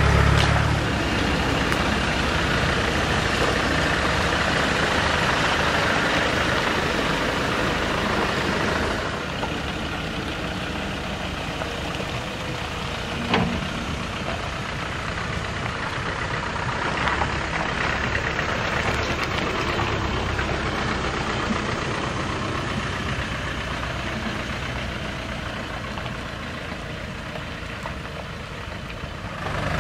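Land Rover 4x4 engines running at low speed and idling as the vehicles crawl over a rough track. The steady drone drops in level about nine seconds in, and there is a single sharp knock a little before halfway.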